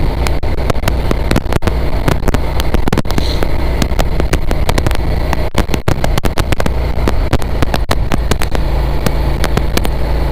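Heavy wind buffeting on a motorcycle rider's helmet microphone, full of sharp crackles, with the motorcycle's engine running steadily underneath.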